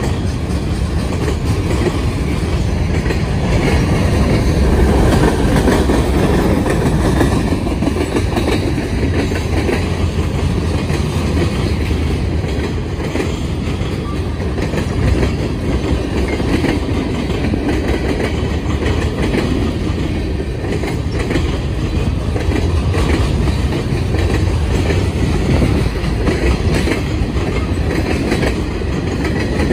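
Freight train of boxcars, tank cars and covered hoppers rolling past at close range: a steady, loud rumble and clatter of steel wheels on the rails.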